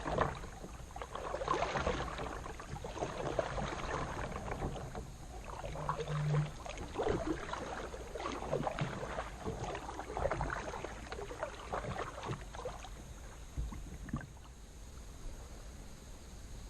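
Kayak paddling: irregular paddle splashes and water dripping and lapping around the hull, thinning out and going quieter near the end.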